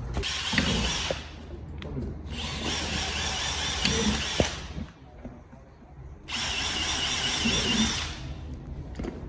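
Power tool running in three bursts in a workshop, each a second or two long with a high wavering whine, the middle one the longest.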